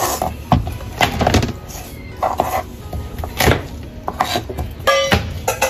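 Garlic cloves being smashed with the flat of a kitchen knife on a cutting board: a series of irregular dull knocks, with a brief high squeak about five seconds in.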